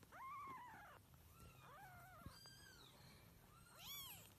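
Kitten mewing: about four short, thin calls that each rise and fall in pitch, the first and last the loudest.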